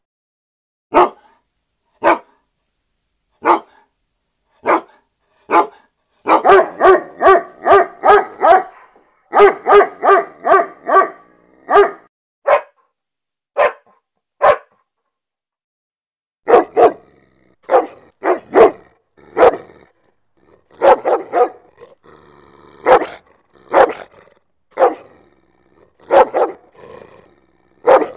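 A dog barking aggressively, in single barks about a second apart, broken by two rapid runs of about four barks a second, and a pause of a second or so.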